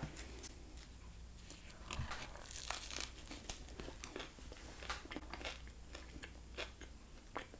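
Close-miked eating sounds of a soft flour tortilla fish taco with shredded cabbage being bitten into and chewed. The bite is about three seconds in, followed by faint wet mouth clicks and crackles.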